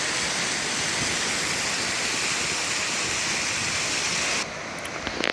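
A waterfall: a steady rush of falling water that cuts off suddenly about four and a half seconds in.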